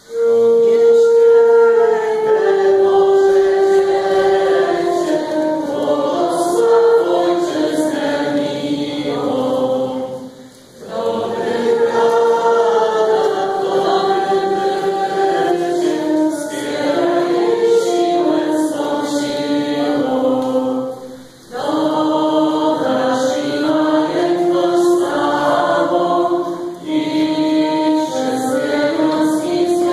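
A group of voices singing a Christmas carol together, in long sung phrases with brief breaks about ten and twenty seconds in.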